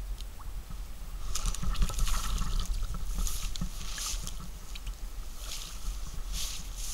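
Carp splashing and sloshing at the water surface: a series of short, irregular watery splashes that begin about a second in.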